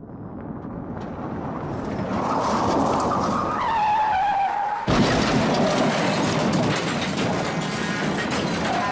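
Car-skid sound effect: vehicle noise swells up and a tyre squeal slides down in pitch, then about five seconds in the sound switches abruptly to a loud rushing noise.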